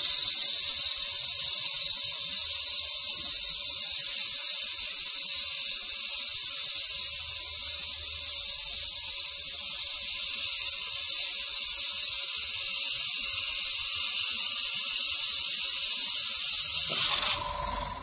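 Vertical glass-drilling machine's bit grinding into glass, a loud steady high hiss over a faint motor hum. The hiss cuts off suddenly near the end as the hole is finished.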